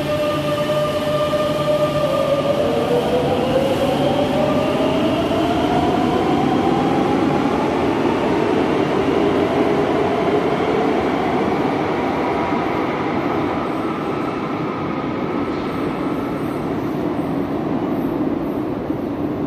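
A Madrid Metro train pulls out of the station, its electric traction motors whining in a tone that climbs steadily in pitch over the first several seconds as it accelerates. Beneath the whine is a continuous wheel-and-rail rumble, which eases slightly as the train draws away into the tunnel.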